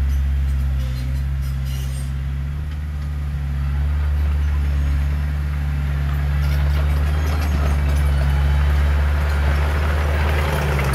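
Heavy diesel engine of earthmoving machinery running steadily, with faint rattles and clanks over it.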